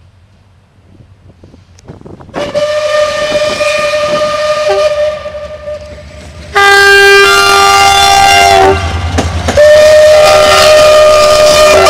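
A train horn and steam locomotive whistle sounding in long blasts as a double-headed train of an electric locomotive and steam locomotive 424 247 approaches: a first long blast about two seconds in, a louder blast of several tones in the middle, and another long blast near the end, over the rumble of the wheels.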